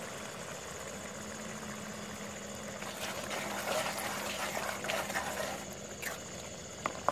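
Chicken curry boiling and bubbling in a steel pot over a fire. From about three seconds in, a ladle stirs through it with small clicks and crackles.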